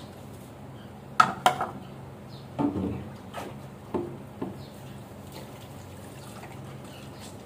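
Dishes being rinsed at a kitchen sink under a running tap: two sharp ringing clinks of crockery and steel utensils a little over a second in, then a few duller knocks as pieces are set down and handled.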